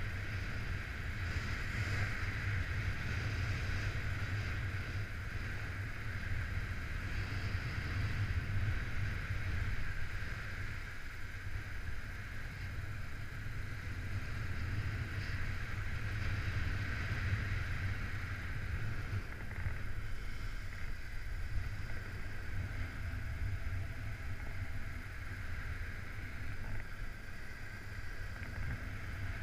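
Wind rushing over the pilot-mounted camera's microphone during a paraglider soaring flight: a steady low buffeting rumble with a hiss above it.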